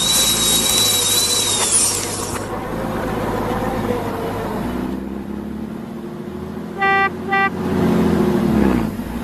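A vehicle engine hums with a wavering pitch, with a loud hiss over it for the first two seconds. A horn gives two short toots about seven seconds in.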